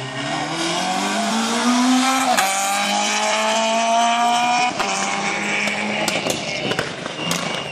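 Rally car engine accelerating hard through the gears, its pitch climbing and dropping at two gear changes, about two and a half and five seconds in. Near the end come a run of sharp pops.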